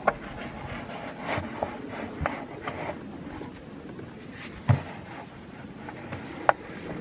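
Hands handling trap materials: scattered rubbing, scraping and light knocks, with a louder thump about four and a half seconds in and a sharp click near the end.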